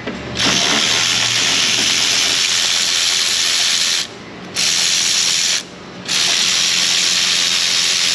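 Power ratchet running through a triple-jointed wobble extension to break loose and spin out a spark plug, a steady hissing whir in three runs with short pauses about four and five and a half seconds in.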